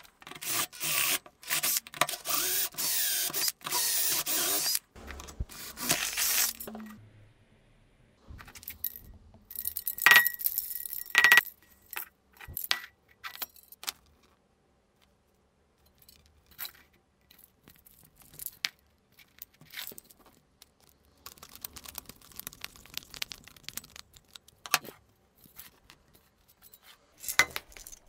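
Cordless drill grinding into the metal top of an empty gas cartridge: a harsh, high screech for about six seconds. Then a ringing metallic clink, followed by scattered small knocks and rubs as the can and plastic tubing are handled.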